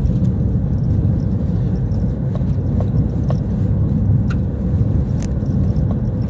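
Car driving along a paved road, heard from inside the cabin: a steady low rumble of engine and tyres, with a few faint ticks.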